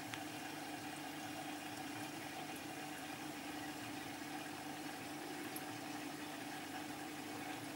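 Aquarium pump running with a steady hum under a faint even hiss of moving water.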